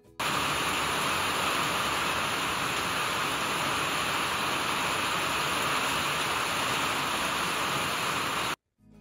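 Heavy rain falling steadily on trees, bushes and lawn: a dense, even hiss that cuts in just after the start and cuts off abruptly shortly before the end.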